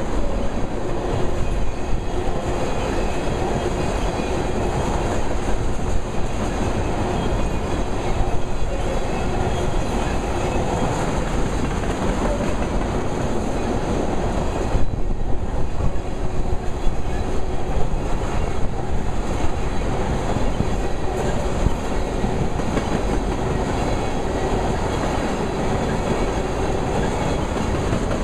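Freight train of tank cars rolling past at close range: steel wheels rumbling and clicking over the rail joints in a steady, continuous run.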